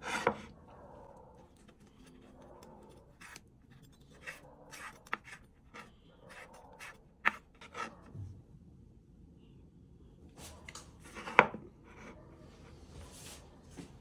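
A ceramic bowl set down on a wooden cutting board with a knock, then irregular knife taps and scrapes on the board as fresh herbs are cut.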